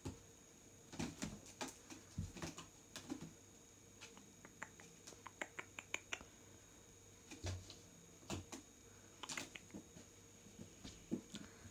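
A Bengal cat's claws catching and scratching on the rope-wrapped posts of a cat tree as it climbs and paws, heard as irregular clicks and taps with a few soft thumps.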